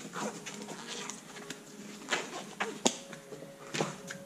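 Gloves being pulled onto the hands: soft rustling with a few sharp snaps and clicks, the sharpest about three seconds in.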